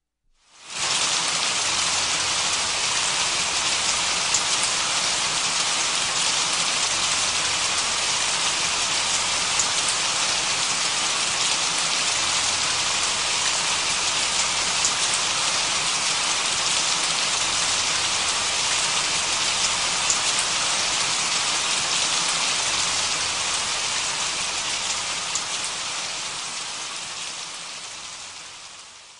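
Steady rain falling, a dense even hiss that fades in about a second in and fades out over the last few seconds.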